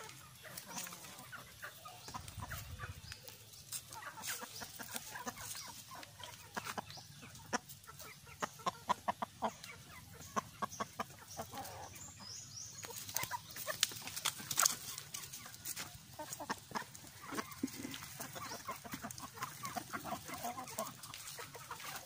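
Backyard chickens and roosters clucking, with many short sharp clicks and taps through the middle of the stretch.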